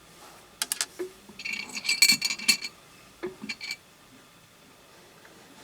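Small rough opal stones clinking against each other and against a hard surface as they are handled: a few sharp clicks, then a quick run of bright, ringing clinks about two seconds in, and a couple more a second later.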